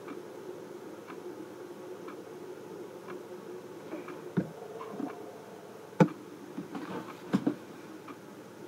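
Fidget spinners spinning down, a faint steady whir, with a few sharp knocks about four, six and seven and a half seconds in.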